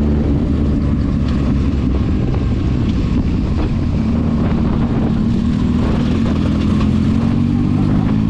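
Vehicle engine running steadily in traffic with road and wind rumble, its pitch rising near the end as it speeds up.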